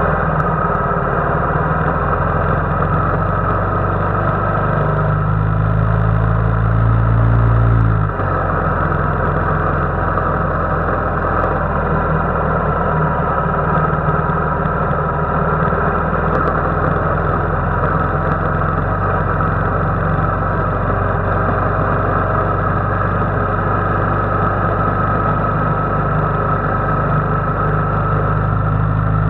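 Royal Enfield motorcycle engine running steadily on the move, heard onboard with road and wind noise. The revs climb for a few seconds, then drop suddenly about eight seconds in, and the engine carries on at an even pace.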